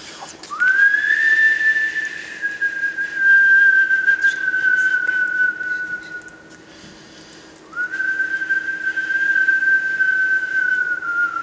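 Two long whistled notes, each held for several seconds. The first swoops up at its start and then sinks slowly in pitch. After a short gap the second comes in and slides downward near the end. A faint steady hum lies underneath.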